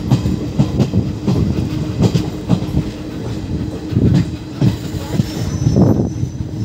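Passenger train coach wheels clattering over the track joints, an irregular run of knocks, as the train pulls out of a station, heard from the open coach doorway.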